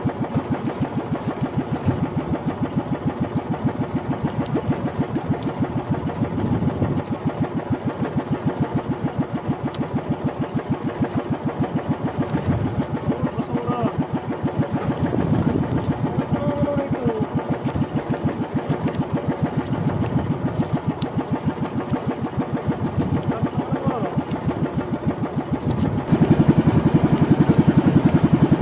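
Small engine of a motorized outrigger fishing canoe running steadily with an even, rapid beat as the boat moves under way; it gets louder near the end as the engine is opened up.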